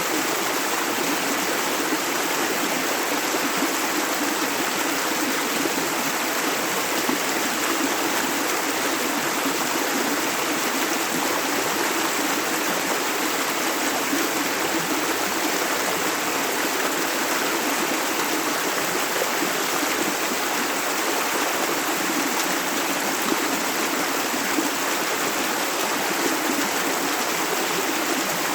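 Clear river running over stones in a steady, even rush of flowing water.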